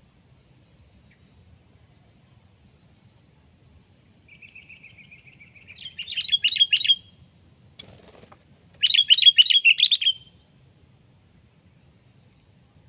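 Sooty-headed bulbul (kutilang) calling: a soft run of quick notes builds into a loud burst of repeated bright chirps, and a second loud burst of the same chirps follows about two seconds later.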